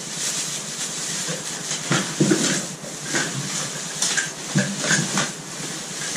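A stuffed plastic bag rustling and crinkling as it is handled and pushed down into a cardboard box. There are a few sharper knocks about two seconds in and again near five seconds.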